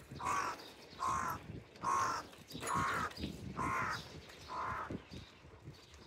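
A crow cawing six times in a steady series, about one caw a second.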